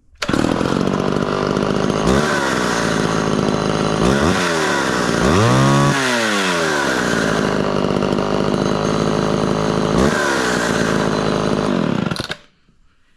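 Vintage Homelite XL12 two-stroke chainsaw firing up straight away and running, revved up and back down several times with one long rev near the middle, then shut off near the end.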